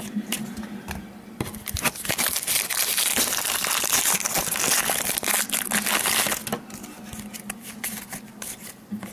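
Foil wrapper of a trading-card pack crinkling and tearing as it is pulled open, with scattered light clicks of cards being handled before and after.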